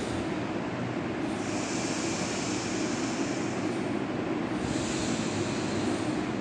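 Slow, deliberate breaths drawn through one nostril, the other pinched shut, in pranayama nostril breathing. A long airy hiss swells in about a second and a half in and lasts a couple of seconds, then another starts near the end, over a steady low hum.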